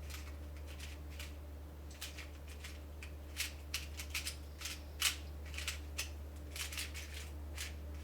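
X-Man Volt Square-1 puzzle cube being turned by hand: a run of quick, irregular plastic clicks of its layers and slice, several a second.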